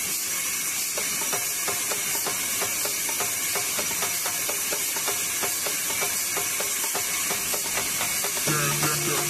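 Band sawmill blade cutting through a log on a trolley carriage: a steady, even hiss. A faint steady beat of background music runs under it and grows louder near the end.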